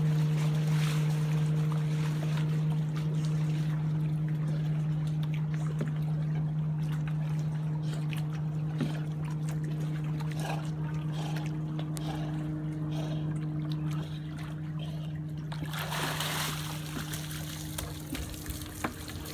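Lake water lapping and trickling at the shore under a steady low hum. About sixteen seconds in comes a louder rush of splashing and streaming water as a soaked dog hauls itself out of the lake onto a dock.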